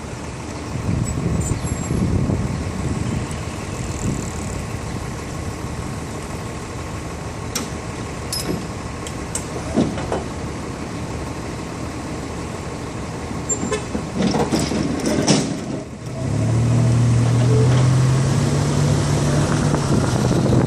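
City street traffic: a steady rumble of passing vehicles with scattered clicks and knocks. About three-quarters of the way through, a heavy vehicle's engine drone, such as a truck or bus, comes in close and loud and holds to the end.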